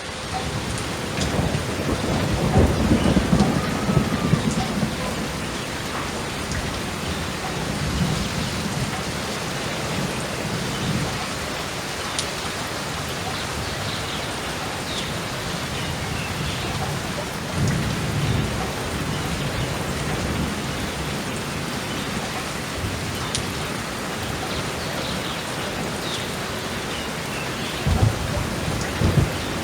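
Steady rain falling, with thunder rumbling low several times: strongest a couple of seconds in and again near the end.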